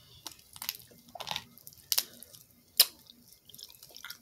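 Close-up seafood-boil eating sounds: shellfish shells cracked and peeled by hand, with wet squishing and chewing. A few sharp clicks stand out, the loudest near three seconds in.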